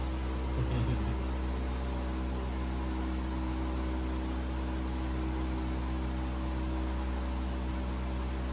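Steady electrical hum over an even background hiss.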